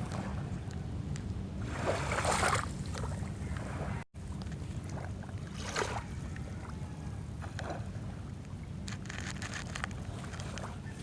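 Sea waves washing on the shore, swelling about two seconds in, over a steady low rumble of wind on the microphone. The sound drops out for a split second about four seconds in.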